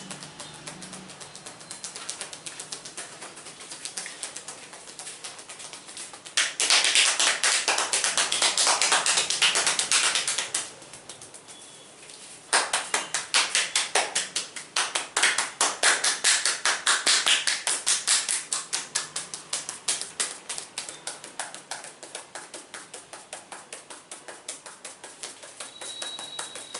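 Hands rapidly tapping and slapping on a person's head during an oil head massage, many strikes a second. The tapping grows loud and dense from about six seconds in, pauses briefly near the middle, then resumes loudly and gradually softens toward the end.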